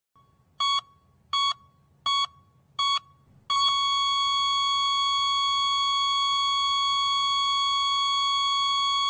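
Electronic heart-monitor beeps, four short evenly spaced pulses, then a single unbroken tone at the same pitch: the flatline that signals the heart has stopped.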